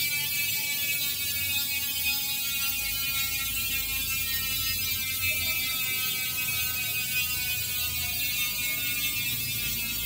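Chosen 150T rear hub freewheeling on a spinning bike wheel: three pawls ratchet over the 150-tooth drive ring so fast that the clicks merge into a steady high-pitched buzz. The pitch drops slowly as the wheel slows.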